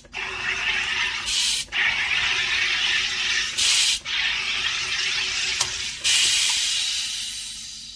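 Aarke sparkling water maker carbonating a bottle of water: CO2 hissing and bubbling into the water as the lever is pulled, with three louder hissing bursts, the last tapering off near the end.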